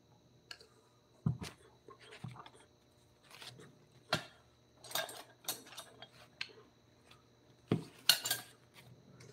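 Irregular knocks and clinks of hard objects being handled, about a dozen over several seconds, the loudest about a second in and again near the end.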